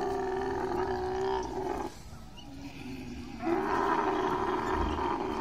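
Camel calling during mating: a long, pitched bellow lasting about two seconds, a short pause, then a second long bellow starting about three and a half seconds in.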